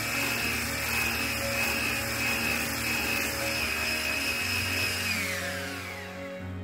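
Electric whisk motor whining steadily as it beats eggs and sugar into a thick pale foam. About five seconds in, its pitch falls away as the motor winds down and stops.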